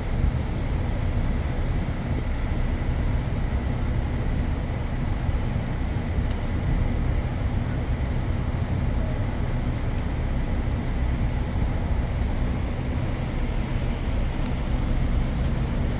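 Steady low rumble of a ship's machinery running, with a faint steady whine held above it.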